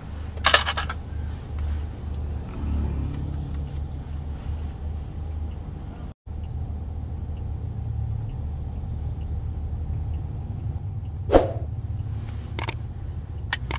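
Steady low rumble of a car heard from inside the cabin, engine and road noise while creeping through traffic, with a few sharp clicks about half a second in and near the end.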